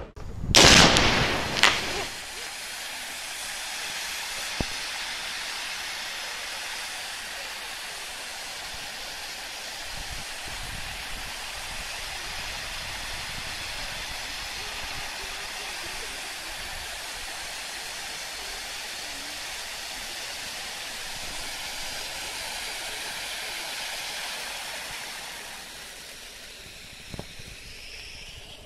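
A row of pyrotechnic ground fountains (gerbs) burning with a steady hiss of spraying sparks, after a loud rush of noise in the first two seconds. The hiss dies down near the end.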